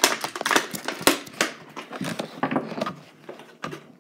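Clear plastic toy packaging being handled and crinkled, a quick irregular run of sharp crackles and clicks.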